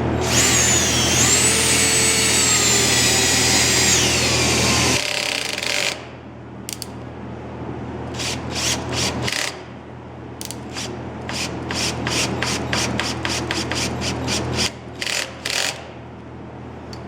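A power tool runs with a high, shifting whine for about the first five seconds, then stops. After that comes a run of short, irregular rasping strokes, about a dozen or more, bunched near the end.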